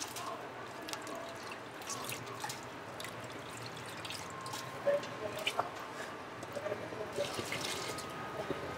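Soaked sela rice being tipped into a pot of simmering masala: scattered light patters and drips, with a few sharper clicks about five seconds in.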